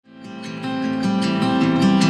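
Song intro music led by strummed acoustic guitar, fading in from silence over the first second.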